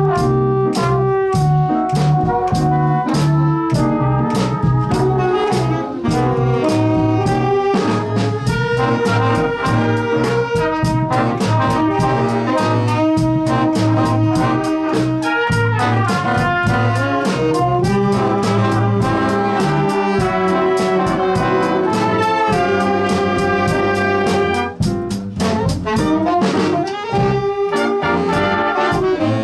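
Student jazz big band playing live: trumpets, trombones and saxophones in sustained section chords over a steady drum beat.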